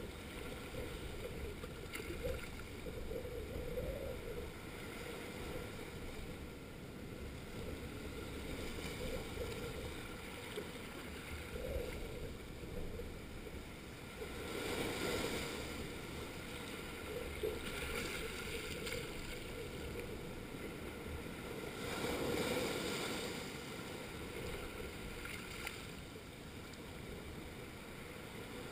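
Small waves washing in over a rocky shore and draining back, swelling and easing every few seconds, with louder surges about halfway and again about three-quarters of the way through.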